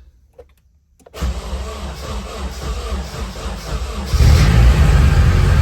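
Nissan 240SX's turbocharged KA24DET inline-four starting after sitting unstarted for a long time. It begins suddenly about a second in and steps up louder about four seconds in as the engine runs.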